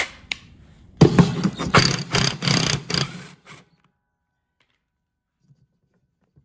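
Impact wrench hammering for about two seconds, spinning off the nut that holds the pulley on a mower deck spindle.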